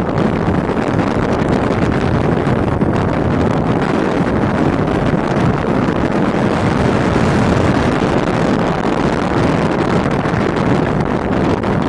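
Steady noise of a car driving along a road: engine and tyre rumble mixed with wind buffeting the microphone.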